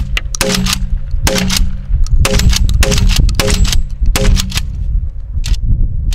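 Remington TAC-14 DM pump-action shotgun fired rapidly at a close target, about six loud shots less than a second apart, stopping about four and a half seconds in. The loads are slugs, and the magazine is emptied.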